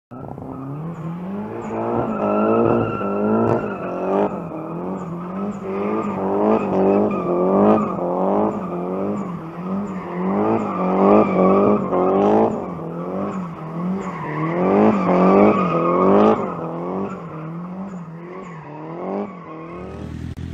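Nissan S14 drift car's engine revving hard in rapid repeated surges, about two to three a second, while its rear tyres squeal steadily as it slides sideways.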